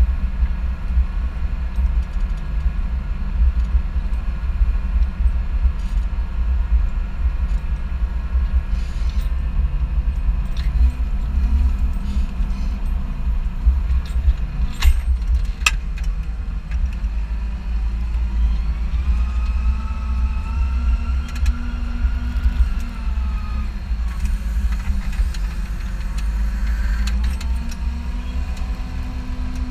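Large farm tractor engine running steadily under load while ploughing, a continuous low drone. About halfway through come two sharp clicks, and later a higher whine rises and then falls as the engine note changes.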